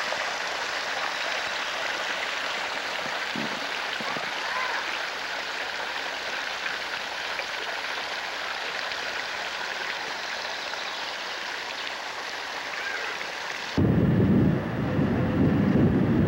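Water pouring from a concrete channel over a small spillway into a pool, a steady rushing hiss. About fourteen seconds in it cuts suddenly to a louder low rumble of a moving vehicle.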